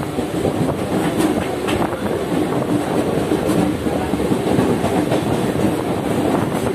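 Mumbai suburban electric local train running at speed, heard from inside the carriage: a steady rumble of wheels on rails with a few sharp clacks over the rail joints.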